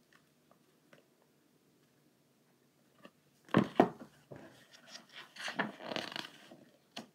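Paper rustling and crackling as the pages of a paperback book are handled and turned. It starts about three and a half seconds in with a couple of loud crackles, then goes on as irregular rustling.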